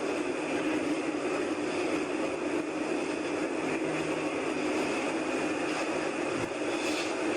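A steady, unchanging droning roar with a low hum under it: one of the unexplained 'strange sounds' recorded in the open air.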